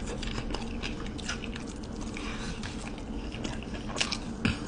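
Close-up mouth sounds of a person biting into and chewing a chicken wing: a steady run of many small clicks, a few a little louder near the end.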